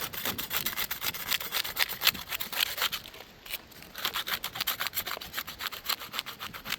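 Putty knife working under a roof shingle to break its sealant strip: a rapid run of scraping, crackling strokes that pauses about three seconds in, then starts again.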